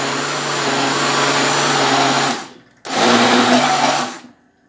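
Countertop blender running, mixing a flour, egg, water and oil batter for a pie crust. It stops about two and a half seconds in, runs again for just over a second, then cuts off near the end.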